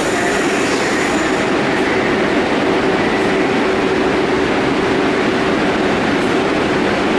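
R62A subway train standing at the platform with its doors open, running a steady hum with a faint constant whine.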